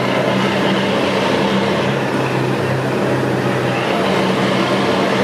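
RNLI all-weather lifeboat's diesel engines running with a steady drone, over the rush of water churning and pouring from the stern.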